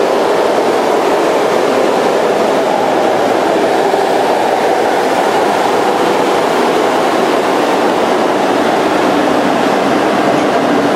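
Altered American Signal T-128 siren running with its rotor bare and no stator (chopper casting), so it only blows air like a fan: a steady rushing of air with a faint low hum underneath and no siren wail.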